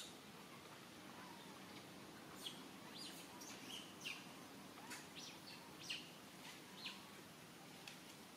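Faint, short, high-pitched animal chirps, about a dozen scattered over several seconds, over a quiet outdoor background hiss.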